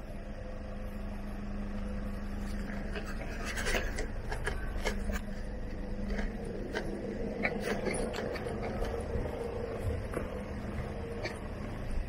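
Footsteps crunching and scraping over dry leaf litter and gravel, irregular and most busy through the middle, over a steady low rumble of wind on the microphone and a faint steady hum.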